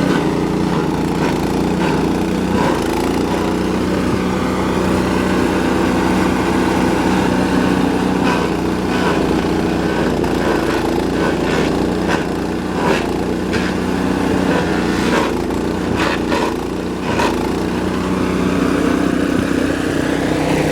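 GeoTech PCS70 BS petrol garden shredder running steadily, with repeated sharp cracks and snaps as branches are chipped, most between about eight and seventeen seconds in.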